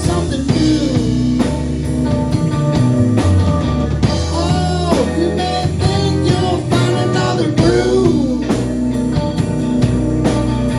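Live blues-rock band: electric guitar playing bending notes over bass guitar and a drum kit.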